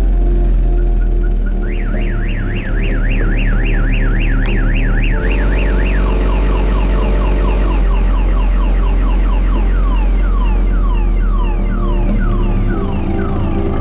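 A parked car's alarm going off and stepping through its tone patterns: a fast up-and-down warble about three times a second, then a run of repeated falling chirps, then rising sweeps near the end. Under it runs heavy subwoofer bass from a car stereo, the bass that was meant to trigger the alarm.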